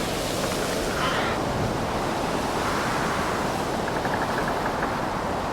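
Steady rush of wind and rough, storm-driven sea waves, with wind buffeting the microphone.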